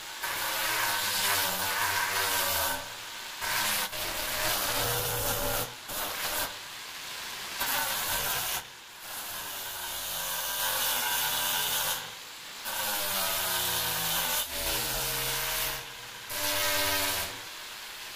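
Angle grinder with a pad working the edge of a stone countertop: a rubbing hiss over the motor's whine. The pitch sags and recovers as the pad is pressed onto the stone and eased off, and the sound drops briefly several times.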